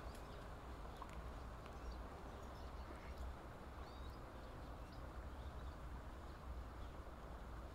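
Faint outdoor lakeshore ambience: a steady low rumble with a few faint, brief high bird chirps.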